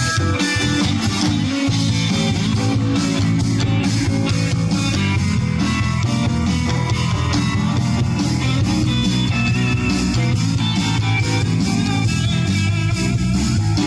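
A live rock band playing an instrumental passage, with guitar over bass and drums.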